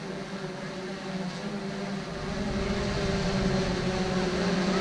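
Small quadcopter drone's propellers buzzing in flight, a steady hum that grows louder about two seconds in.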